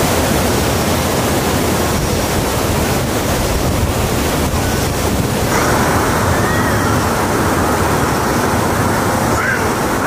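Loud, steady rushing noise with no distinct events. Its bright hiss eases about five and a half seconds in.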